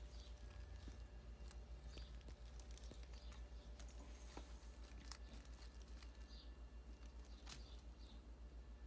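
Near silence: room tone with a steady low hum and a few faint, scattered clicks.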